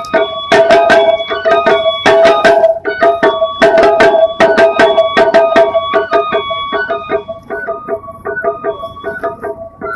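Taiko ensemble's quieter melodic passage: a high melody of short notes stepping quickly between pitches over a steady ringing tone, with rapid light strikes throughout that thin out in the second half.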